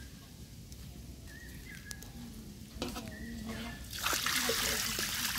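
Water poured from an aluminium jug into a large iron kadai of curry gravy, starting suddenly about four seconds in as a loud splashing rush of liquid.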